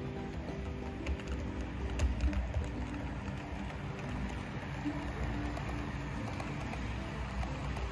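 HO-scale model freight train running past close by, its wheels rumbling and clicking over the track, loudest about two seconds in. Music plays in the background.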